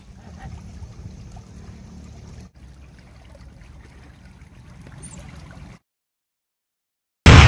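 Steady low rumble and hiss of rain and wind on the microphone. It breaks briefly about two and a half seconds in and stops dead about six seconds in. Near the end a sudden loud boom sets in.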